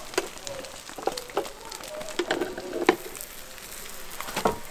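Egg omelette sizzling in a rectangular pan over a gas burner, with a plastic spatula tapping and scraping against the pan several times. Near the end a louder knock as the pan is tipped to turn the omelette out onto a bamboo mat.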